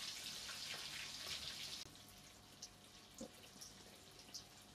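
Tofu frying in hot oil: a dense sizzle full of fine crackles that drops suddenly about two seconds in to a low hiss with a few scattered pops.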